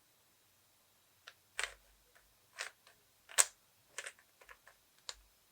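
Plastic 3x3 Rubik's cube being twisted by hand: a string of irregular clicks and clacks from the turning layers, the loudest about three and a half seconds in.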